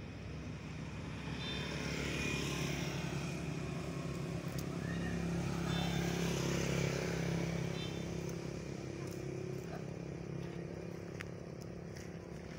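A motor vehicle passing by. Its engine hum and road noise swell over the first couple of seconds, stay up for several seconds and fade away after about eight seconds. A few faint clicks come near the end.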